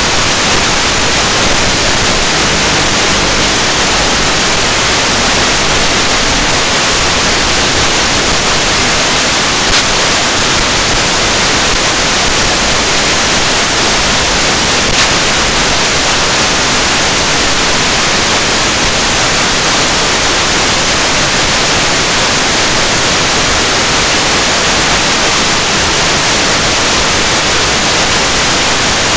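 Loud, steady static hiss from the empty audio channel of an analog FPV video feed recorded from the goggles, with two brief ticks about five seconds apart.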